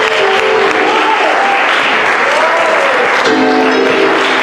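Congregation clapping and calling out in praise, over music with held chords.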